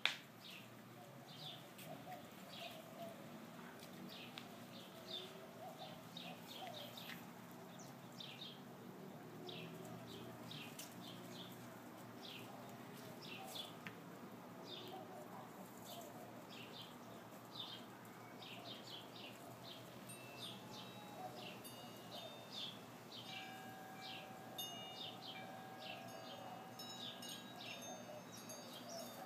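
Small birds chirping over and over. In the second half, wind chimes ring in several long steady tones.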